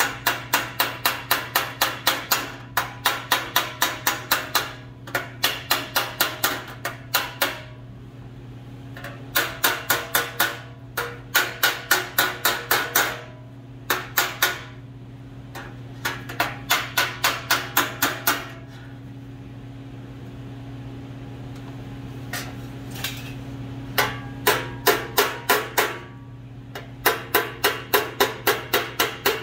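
Body hammer striking a MIG-welded seam in a steel cowl side panel directly on a dolly held behind it: quick runs of about four to five ringing blows a second, broken by short pauses and a longer lull of scattered taps midway. The ring of hammer on dolly is the sign that the weld is being stretched to undo welding shrinkage and distortion.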